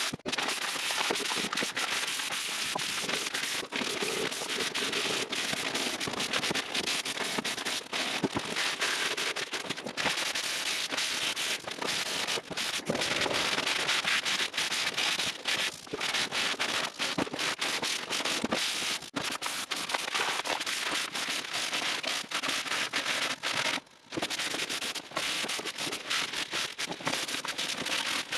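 Sandpaper worked back and forth by hand over bodywork: a continuous rough, scratchy rasping full of tiny irregular clicks, with a brief break about 24 seconds in.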